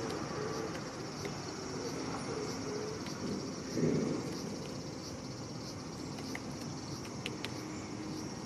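Steady outdoor background of a high, even insect drone, with the low rumble of passing road traffic swelling briefly about four seconds in. A few faint ticks near the end.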